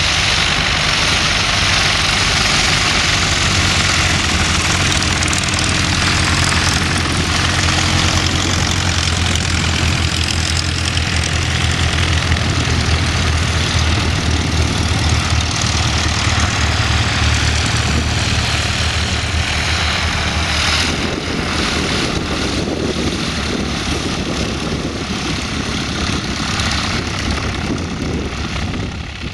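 Propeller-driven piston engines of Van's RV homebuilt planes running steadily at low taxi power as the planes roll past one after another. The sound changes about two-thirds of the way through as a different plane takes over.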